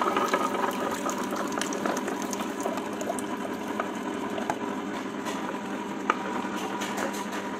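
Tabletop wet grinder running, its stone rollers turning in the steel drum and churning soaked rice and dal into idli batter: a steady motor hum with wet churning and scattered light clicks.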